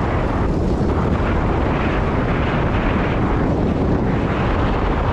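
Heavy wind buffeting the microphone over the steady noise of a moving vehicle.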